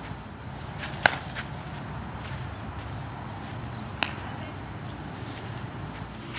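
Two sharp cracks about three seconds apart over steady outdoor background noise: a bat hitting a fly ball, then the ball landing in the fielder's glove.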